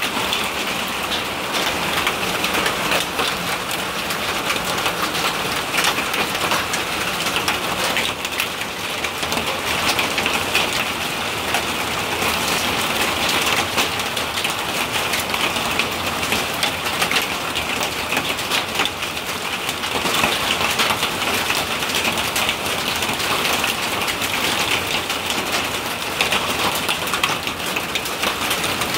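Hail and heavy rain drumming on a corrugated patio roof: a dense, steady patter of countless small hard hits that sounds like marbles or rocks coming down.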